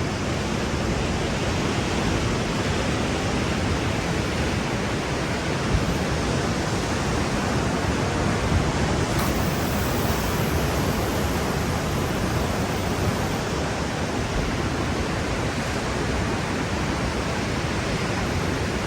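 Steady rushing noise of ocean surf washing against a rocky shore.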